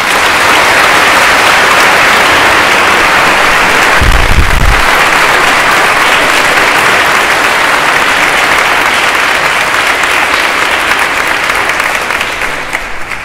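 A crowd applauding, a dense, sustained clapping that fades off near the end. A brief low thump comes about four seconds in.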